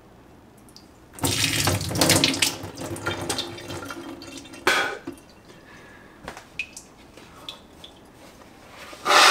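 Saline nasal rinse: salt water snorted up through the nose and spat out into a stainless steel sink, splashing for a few seconds, with one more sharp spurt about halfway through. Near the end, a short loud nose blow into a paper towel.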